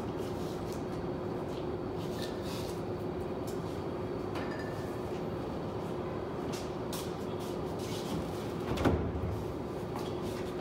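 Steady room noise with a faint hum, small taps and clicks of objects being handled on a table, and one heavier thump near the end.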